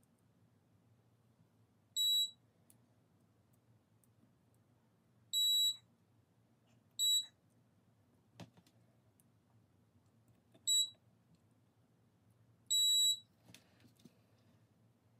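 Five short, high-pitched electronic beeps at irregular intervals, some brief and some held for about half a second, with a couple of faint clicks between them.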